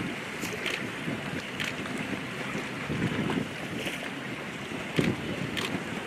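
Wind buffeting the microphone over choppy sea, with water splashing and slapping in short bursts and one sharp thump about five seconds in.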